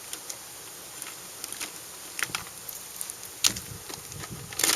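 Small plastic toys clicking and knocking together as a hand rummages through a container of action figures, with one sharper knock about three and a half seconds in and a quick run of clicks near the end.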